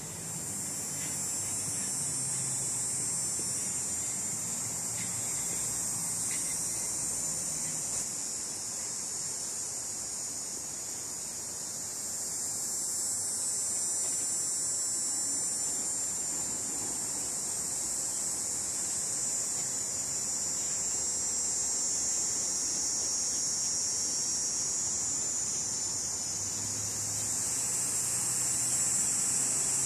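Steady, high-pitched chorus of summer insects buzzing. A low hum comes in near the end.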